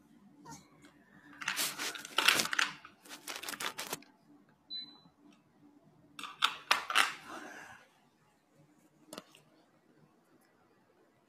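Handling noise from a phone being moved around: two bouts of loud rustling and scraping against its microphone, with clicks, and a single click later on.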